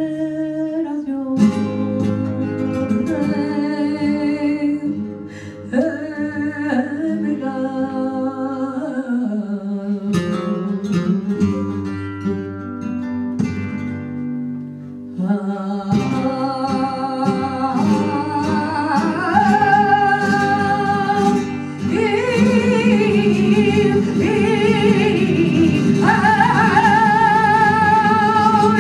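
Flamenco petenera sung by a woman, her voice held and ornamented with a wide vibrato toward the end, over two acoustic flamenco guitars. Near the middle the singing thins out and a run of sharp percussive clicks comes through.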